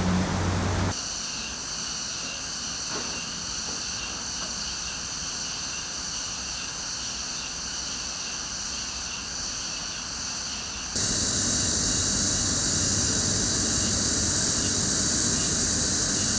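Steady outdoor background ambience, an even high hiss with no distinct events, that drops in level about a second in and rises again near eleven seconds.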